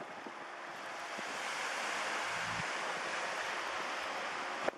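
Surf breaking and washing up a sandy beach, swelling about two seconds in, with a brief low gust of wind on the microphone.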